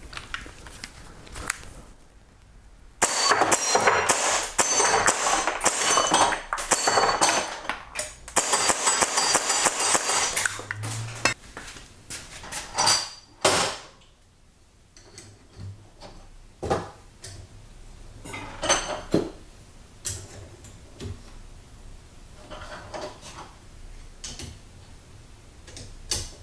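Airsoft BBs striking small steel targets, a miniature Texas Star and plate rack: a fast string of metallic pings and clanks starting a few seconds in and lasting several seconds, with struck plates clattering off, then a few more hits. After that come scattered light clinks and clicks as the steel plates are put back onto the star's magnet-held arms by hand.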